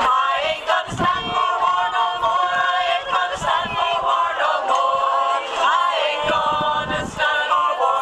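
A group of people singing together unaccompanied, several voices holding long notes in a slow song.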